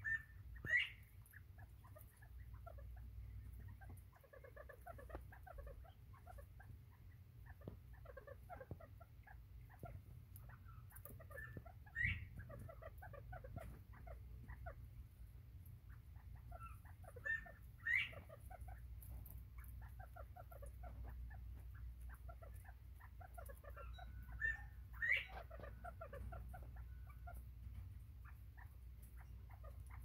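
Northern bobwhite quail feeding and keeping up a soft chatter of short, quiet notes. A few louder, sharp rising chirps stand out now and then: about a second in, near the middle, and twice each in the later part.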